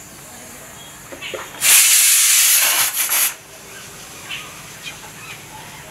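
Pressure cooker letting out a loud hiss of steam for about a second and a half, starting about two seconds in.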